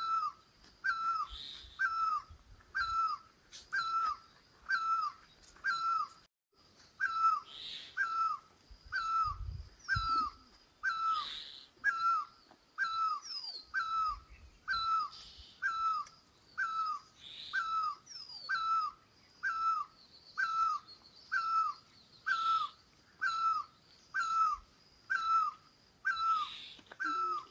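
A bird repeating a single short whistled note, dipping in pitch at its end, about once a second in a steady unbroken series. Smaller birds chirp faintly and higher in the background.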